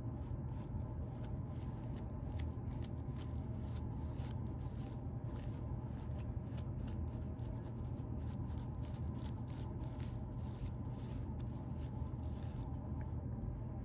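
Fingernails scratching through a beard flaking with dandruff: a quick, irregular run of short scratching strokes, thinning near the end, over a steady low hum.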